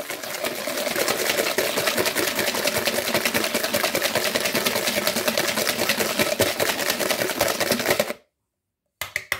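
Wire balloon whisk beating egg yolks with sugar and salt by hand in a mixing bowl: a fast, even clatter of the wires against the bowl that stops short about eight seconds in, then a few quick taps near the end.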